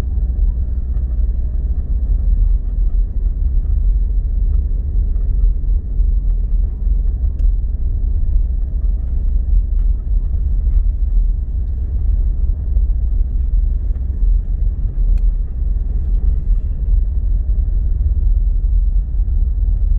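Blizzard wind buffeting the microphone: a loud, continuous, gusting low rumble.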